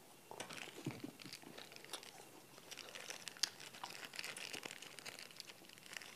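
Plastic ice cream bar wrapper crinkling as it is torn open, a dense run of small crackles.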